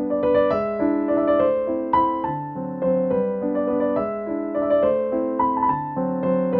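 Background piano music: a melody of short struck notes over chords.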